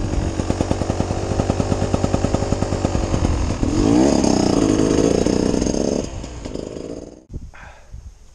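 Beta 300 Xtrainer's 300 cc two-stroke single-cylinder engine running with a rapid, even pulse, revving up about four seconds in. It then dies away and cuts off abruptly about seven seconds in.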